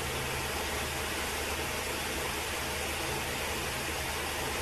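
Steady background hiss with a faint low hum underneath and no distinct events: constant room or recording noise.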